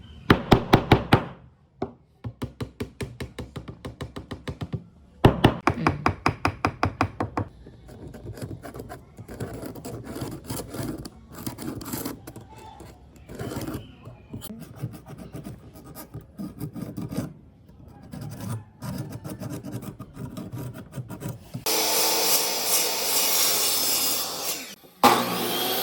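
Hand work on wood: quick runs of rapid, evenly spaced scraping strokes and scattered knocks. Near the end a power tool cuts into wood for about three seconds and stops abruptly.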